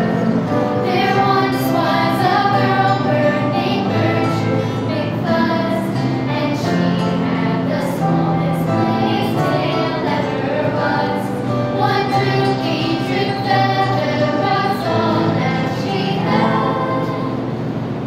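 A small group of young girls singing a musical-theatre number together, with lower held notes of an accompaniment underneath.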